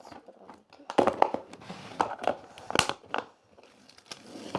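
Slime being squeezed and stretched by hand, giving irregular sticky clicks and crackles.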